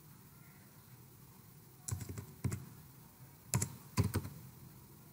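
Keystrokes on a computer keyboard: a short run of taps about two seconds in, then another quick run of taps around three and a half to four seconds.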